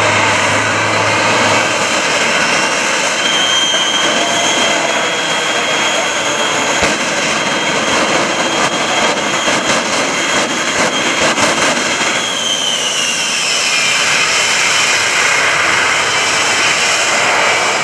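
The Shockwave Jet Truck's three Pratt & Whitney J34 jet engines running at high power with a loud, steady jet roar while flames shoot from its exhaust stacks. A run of sharp pops comes around the middle, and a whine falls in pitch in the last third.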